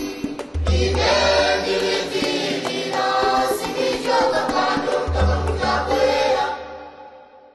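Music with a choir singing and deep bass notes, fading out near the end.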